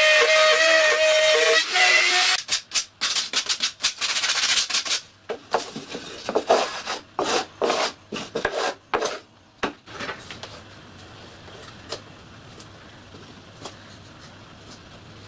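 Wood router in a router table running with a steady high whine, which stops a second or two in. Then come about seven seconds of quick, uneven strokes of hand-sanding along the cut edges of OSB pieces. After that only a faint hum and a few light knocks as the pieces are handled.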